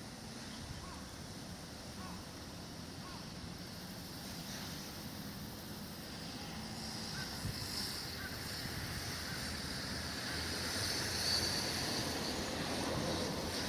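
Strong wind gusting across the microphone with a steady rushing noise, swelling louder in the second half.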